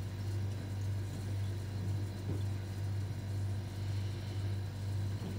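Steady low hum with no other event.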